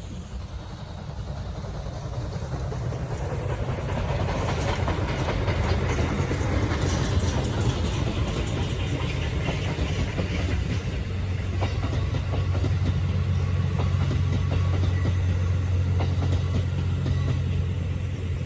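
Steam-hauled passenger train passing close by, its wheels clattering over the rail joints over a steady low rumble. The sound builds over the first few seconds, then holds.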